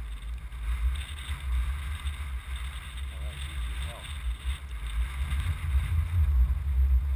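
Wind buffeting the action camera's microphone in a gusting low rumble, over the hiss and splash of water as a kiteboard skims across shallow water; it grows louder toward the end.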